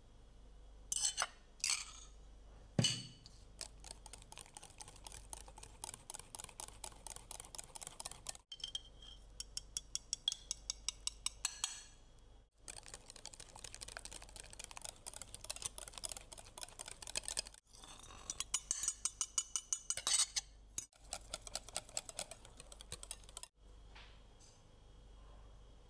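A utensil clicking rapidly and rhythmically against a mixing bowl, several strokes a second, as batter is mixed. The clicking stops abruptly several times and resumes.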